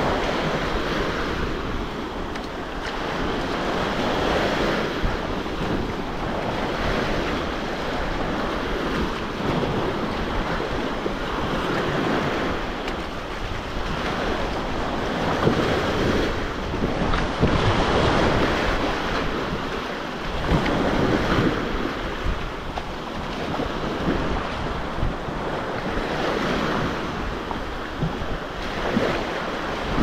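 Black Sea surf: waves breaking and washing in, the noise swelling and fading every few seconds, with wind rumbling on the microphone.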